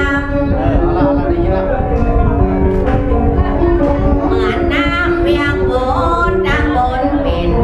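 Northern Thai saw folk singing: a voice singing a sliding, ornamented melody over held notes from the pin and salo string accompaniment.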